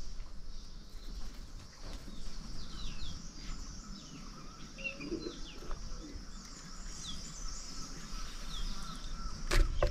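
Birds chirping in short, high, downward-sliding notes, scattered through the second half, over a steady outdoor background hiss. A sharp knock sounds near the end.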